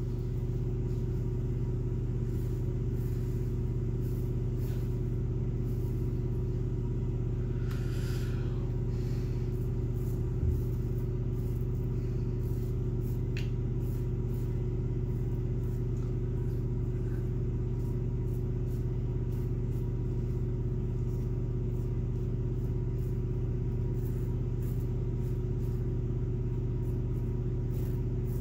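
Short strokes of a Muhle R41 double-edge safety razor scraping through lathered stubble, faint under a steady low mechanical hum that is the loudest sound throughout.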